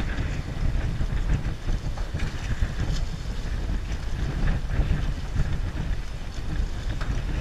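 Wind buffeting the microphone on an open fishing boat: an uneven low rumble, with a few faint light clicks.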